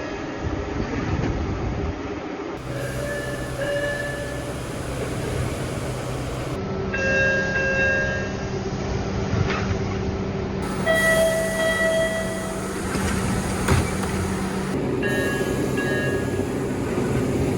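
A string of MBTA Orange Line subway-car door chimes, each a short two-note tone of a second or so, spliced from different cars. They play over the steady hum and rumble of a train standing at a platform. A single sharp knock sounds near the end.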